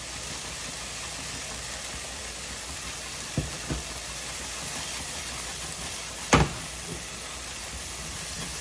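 Onions, peppers and garlic sizzling in butter in a frying pan, a steady hiss with a couple of light knocks and one sharper clack about six seconds in.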